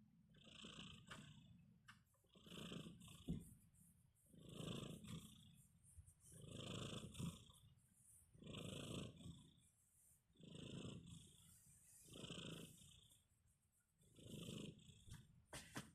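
Sleeping kitten snoring faintly, one soft snore on each breath, about every two seconds. A small sharp click sounds about three seconds in.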